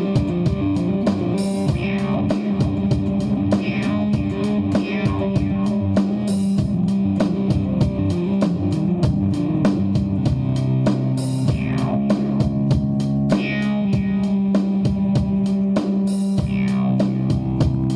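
Background rock music with guitar, bass guitar and a drum kit keeping a steady beat.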